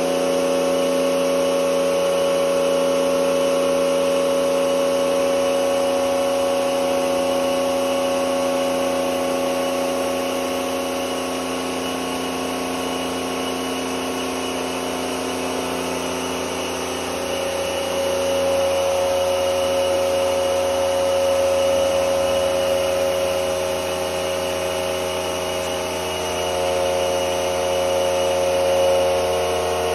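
The pump of a handpan hydroforming rig running steadily as it presses water against the steel shell: a continuous machine hum made of several held tones. The tones shift a little past halfway and again near the end.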